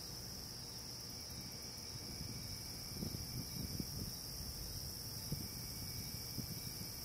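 Steady, high-pitched chorus of outdoor insects, one unbroken shrill band. From about three seconds in, faint irregular low rumbles and knocks join it.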